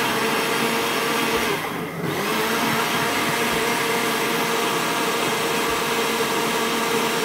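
Countertop blender motor running steadily, blending a banana milkshake; its pitch and level dip briefly about two seconds in.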